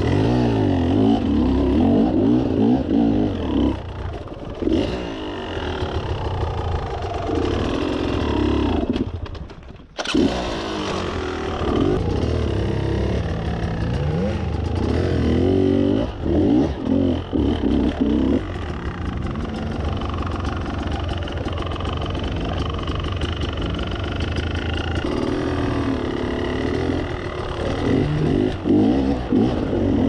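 Enduro dirt bike engine revving up and down in repeated bursts on a steep rocky climb. The sound dips to a lull and cuts back in abruptly about ten seconds in.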